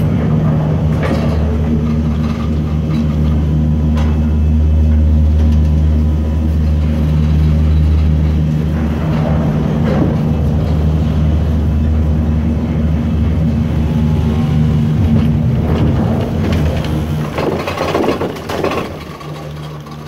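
Doppelmayr cabriolet gondola terminal machinery running: a steady, loud low hum from the bullwheel and drive, with clatters as cabins pass through the turnaround. The hum falls away near the end.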